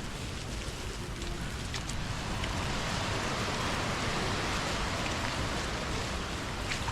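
Heavy rain falling steadily, with a few sharp drop ticks close by and a slight swell in the middle.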